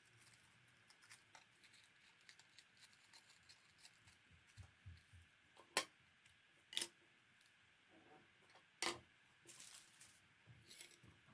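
Small craft scissors snipping, a run of soft quick clicks, then three sharp knocks as the scissors and other items are set down on a wooden table, with some rustling of fabric near the end.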